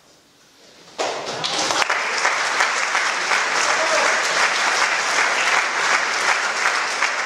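Audience applauding, breaking out suddenly about a second in after a quiet moment at the end of the music, then holding steady.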